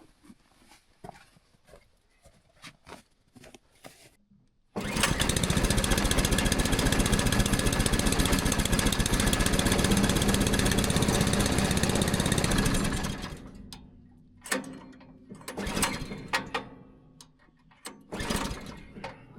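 Small replacement engine on a sawmill starts abruptly about five seconds in, runs steadily for about eight seconds, then shuts off and winds down. A few light clicks and knocks come before and after.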